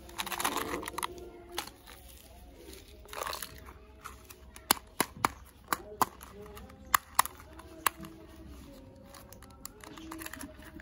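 Plastic candy wrapper crinkling and tearing as it is unwrapped, then a quick run of sharp clicks as a plastic surprise egg is handled and its tape band peeled off.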